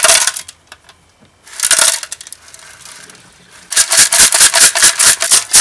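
Pebbles rattling inside a Simson SR50's steel fuel tank as it is tipped and shaken to clean out rust and dirt with petrol. A short rattle at the start and again just before halfway, then rapid rhythmic shaking, about five shakes a second, from about two-thirds of the way in.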